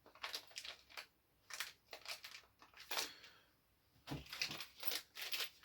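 Small plastic parts bags being handled, giving a run of short crinkles and rustles with brief pauses between.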